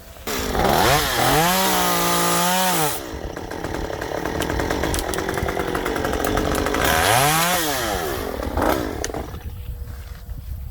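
Stihl MS 194 T top-handle two-stroke chainsaw revving up about half a second in and holding at full throttle. It drops to a lower, rougher note for several seconds as it cuts into wood, then revs briefly again and eases off near the end.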